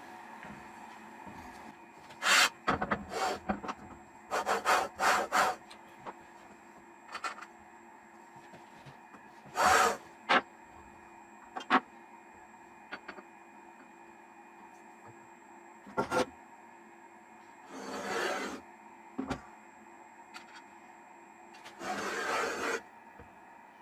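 Scattered knocks, clicks and short scrapes of metal tools handled on a wooden workbench: a magnetic-base dial indicator being moved, set down and slid along an aluminium extrusion and its linear rail. The longest scrapes come about ten seconds in, near eighteen seconds and near the end.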